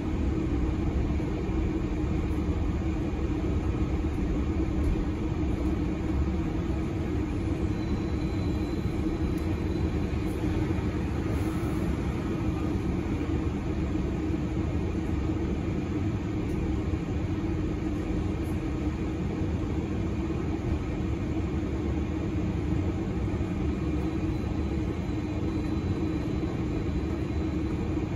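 Steady running noise inside a moving National Express West Midlands single-deck bus: a drone with road rumble beneath it, unbroken throughout.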